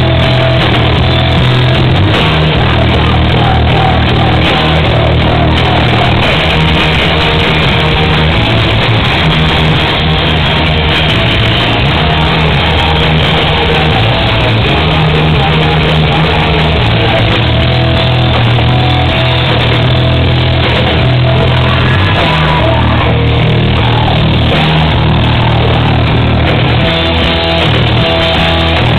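A live rock band playing loudly: electric guitar, drum kit and a singer on a microphone.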